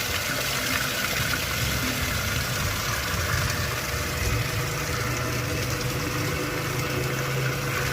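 100-litre soap mixing machine running steadily: a low motor hum under a constant whirring noise.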